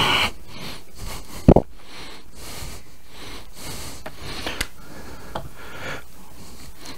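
Microphone handling noise over a church sound system: rustling and scattered ticks, with one sharp thump about a second and a half in.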